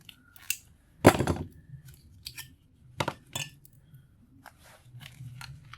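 Side cutters working the folded tabs of a small transformer's sheet-steel shield, a few separate sharp metallic clicks and clinks, the loudest about a second in.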